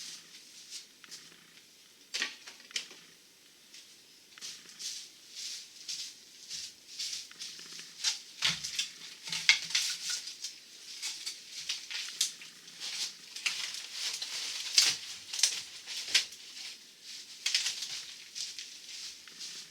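Demolition debris being cleared up by hand: irregular scraping, rustling and light clattering strokes, some louder than others, with a brief deeper knock about eight seconds in.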